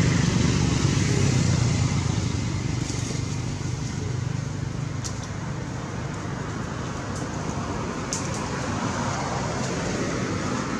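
Road traffic: a vehicle's engine rumble that eases off over the first couple of seconds, then a steady traffic hiss with a few faint clicks.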